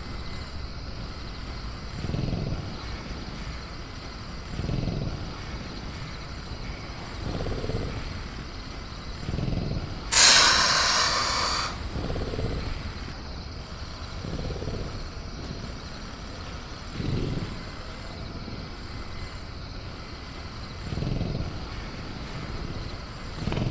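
Designed jungle-cage ambience for a caged velociraptor: a steady low rumble under faint, steady cricket tones, with soft low swells every two to three seconds. About ten seconds in, a loud hiss lasts about a second and a half.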